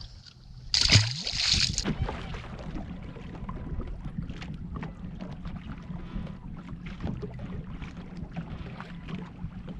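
Sounds aboard a small fishing boat: a sudden loud rushing noise about a second in, then a steady low hum under scattered light knocks and clicks.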